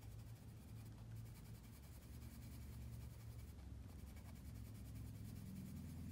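Faint scratching of a Derwent Inktense pencil shading lightly over coloring-book paper, over a steady low room hum.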